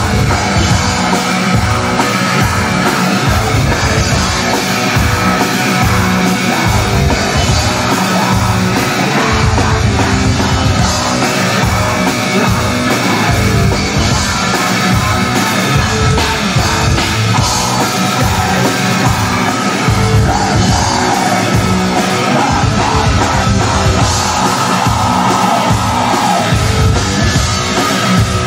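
Black metal band playing live, with distorted guitars and drums, loud and steady.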